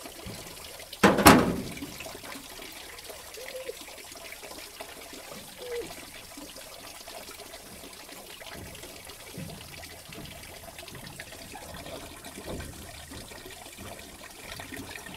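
Steady trickle of water from a running garden hose splashing onto a cutting board at a fish-cleaning table, with one loud sharp knock about a second in.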